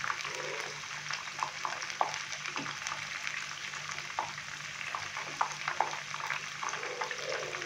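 Chicken pieces deep-frying in hot oil in a pan: a steady sizzle with scattered sharp crackles, as the fried pieces are lifted out with a wooden spoon and a wire skimmer.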